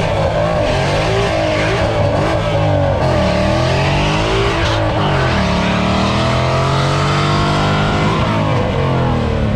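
A vehicle engine revving hard, its pitch climbing and falling several times, then held high for a couple of seconds before dropping near the end.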